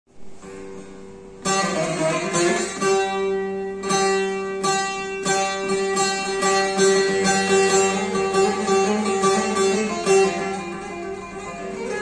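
Bağlama (Turkish long-necked saz) played solo: a fast run of picked notes over a steady ringing drone. It starts softly and comes in fully about a second and a half in.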